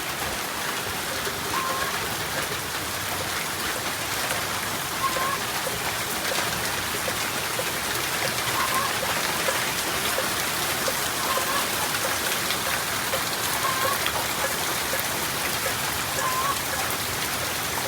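Steady rain falling, an even hiss of many drops at a constant level throughout. A faint short note recurs every few seconds behind it.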